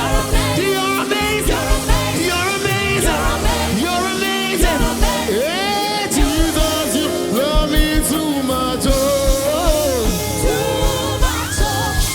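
Live gospel music: a lead voice singing over a band, with held keyboard-like tones and a steady kick-drum beat.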